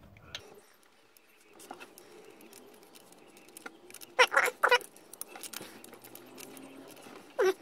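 Scratchy handling noises and small metallic clicks as a bolt and socket wrench are worked onto the air-conditioning belt's adjustable pulley. A quick cluster of three louder knocks comes about four seconds in, and another short one near the end.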